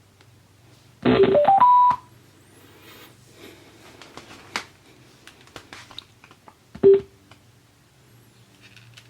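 Bluetooth speaker's electronic prompt tones: a quick rising run of about five stepped beeps about a second in, then a single short lower beep near the end, with faint clicks in between.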